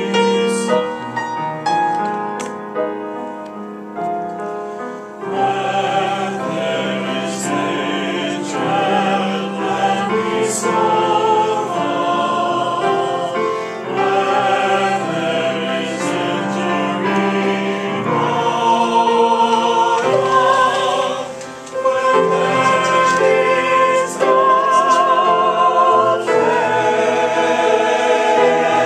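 A choir singing with piano accompaniment. The piano plays alone at first, and the voices come in about five seconds in and carry on over it.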